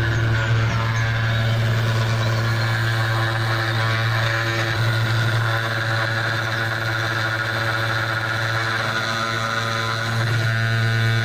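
CNC 2417 router's 775 spindle motor running steadily with a loud hum at about 6000 rpm, its carbide ballnose end mill engraving lettering into anodized aluminium. It gets slightly louder near the end.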